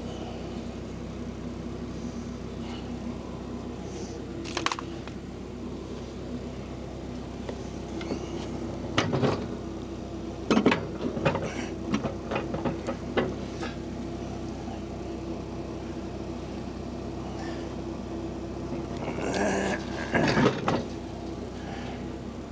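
Steady low mechanical hum with scattered short knocks and clatters, a cluster of them about ten to thirteen seconds in and a louder pair near the end, typical of parts and tools being handled.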